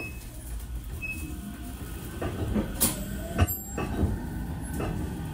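A JR 313 series electric train running, its wheels on the rails and its motors whining. The whine climbs in pitch through the second half as the train speeds up, with several sharp clacks from the wheels.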